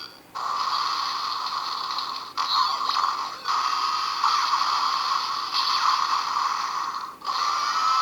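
Electronic finisher sound effects from a DX Sengoku Driver toy belt with the Kamen Rider Wizard Lock Seed, thin and tinny through the belt's small built-in speaker. They come in several stretches with short breaks, about two, three and seven seconds in.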